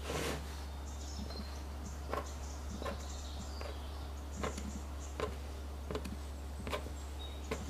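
Metal tart-crimping tongs pinching the rim of the pastry all the way round the tart ring: a short light click about every three-quarters of a second, over a steady low hum.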